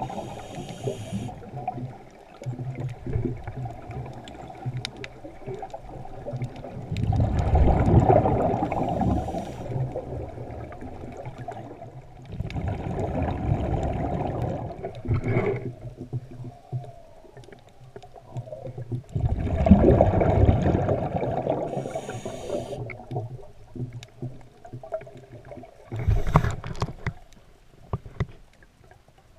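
Scuba diver breathing through a regulator underwater: long bursts of exhaled bubbles about every six seconds, with short hissing inhalations between them.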